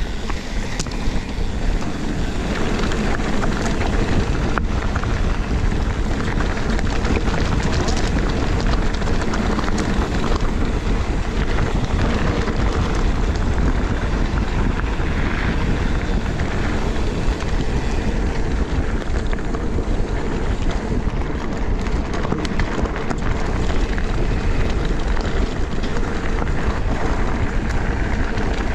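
Mountain bike riding down a rough trail: a steady rush of wind on the camera microphone and tyre noise, with many small knocks and rattles from the bike.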